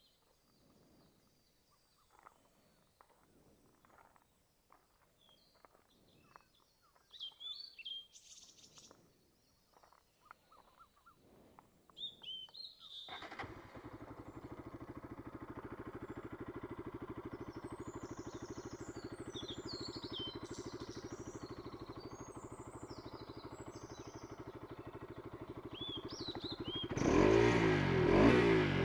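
Bajaj Pulsar RS200's single-cylinder engine starting up about halfway through and idling steadily, then revved in short blips that rise and fall near the end. Birds chirp faintly before and over the idle.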